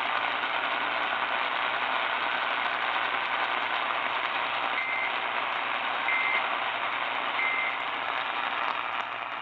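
Hissing AM radio static with a faint low hum, and three short data bursts a little over a second apart about halfway through: the Emergency Alert System end-of-message (EOM) tones closing a Required Monthly Test.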